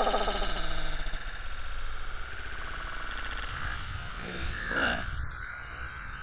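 Water splashing and churning right at the camera, held at the surface of a swimming pool of water. A drawn-out yell dies away at the very start, and a short cry comes about three-quarters of the way through.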